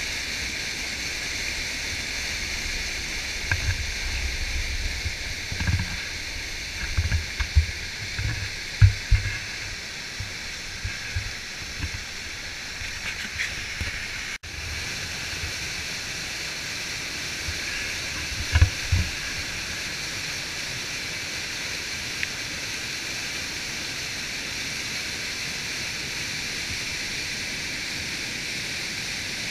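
A large waterfall and rapids in high flow: white water rushing steadily. Low thumps come now and then in the first half and once more past the middle.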